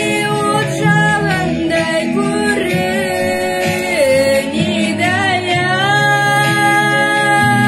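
A child singing a song solo over musical accompaniment, holding one long note near the end.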